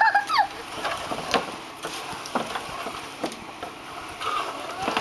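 A dog moving about inside a large pipe tunnel: scattered knocks and scrapes of its feet against the pipe, the sharpest about a second in.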